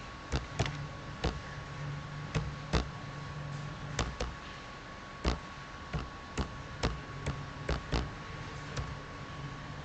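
Computer keyboard keystrokes: single key presses clicking at an irregular, unhurried pace, about one or two a second, over a faint steady hum.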